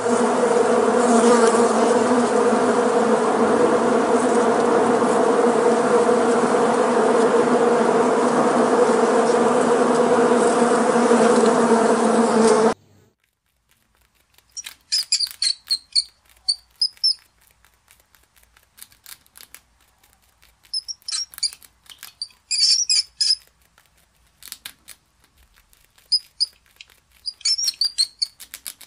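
Honeybees buzzing in a mass, a loud steady hum that cuts off suddenly about thirteen seconds in. Then rats give short, high squeaks in clusters of several, with faint ticks and rustles between them.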